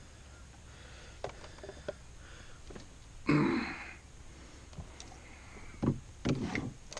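Handling noise while a small pike is unhooked over a landing net in a boat: scattered light clicks and knocks, one short louder noise about three seconds in, and a few sharper knocks near the end.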